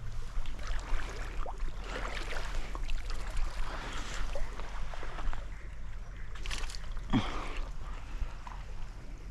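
Trout stream water running and splashing irregularly, with a louder splash about seven seconds in, over a steady low rumble.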